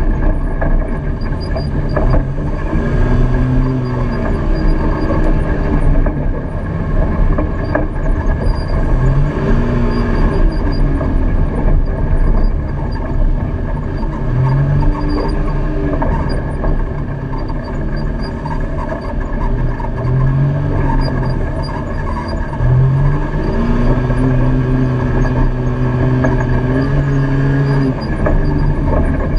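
Side-by-side UTV engine running under load on a rough dirt trail, its revs rising and falling again and again and held high for a few seconds near the end, over a steady rattle and rumble of the machine and trail.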